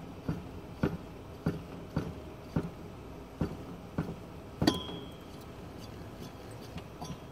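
Metallic clinks and knocks, about two a second, from a 1963 Rambler American generator being pushed round by hand to get it spinning as a motor on a weak charger. The loudest clink, with a short ring, comes a little past halfway, and then they thin out.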